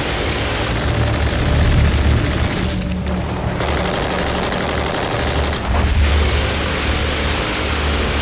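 Music mixed with rapid machine-gun fire from a boat-mounted gun, over a steady low rumble. The sound drops out briefly twice, at about three seconds and at about five and a half seconds.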